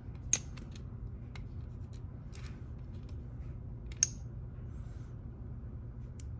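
Small sharp metal clicks and a brief scrape as pins and parts of a pin-tumbler lock cylinder are handled and separated, with two louder clicks about a third of a second in and about four seconds in, over a steady low hum.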